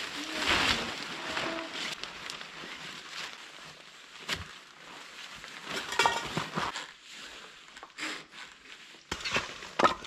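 Tarp rustling as it is spread and pulled over the shelter frame, then scattered knocks and clinks of gear being handled.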